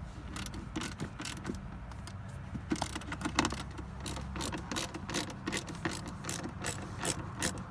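Hand ratchet and socket clicking in quick runs as a screw is turned out, with small knocks of metal and plastic between the runs.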